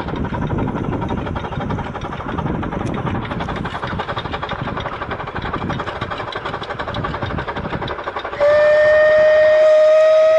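Two narrow-gauge steam locomotives working hard up a gradient, their exhaust beats chuffing rapidly. About eight seconds in, a loud, long, steady steam whistle starts and drowns out the beats.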